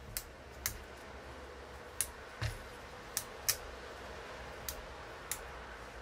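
Scattered light clicks and taps, about eight in all and irregularly spaced, as small metal and plastic parts of a CDJ-1000MK2 jog-wheel assembly are handled on the bench, over a low steady background hum.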